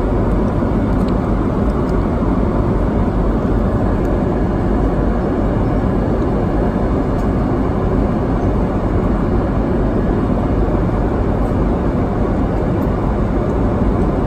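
Steady cabin noise of an airliner in flight: the even rumble of engines and airflow heard from a passenger seat.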